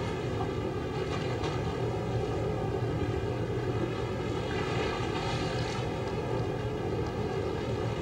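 Fishing boat's engine running steadily at sea, a constant drone over a low rumble of wind and waves.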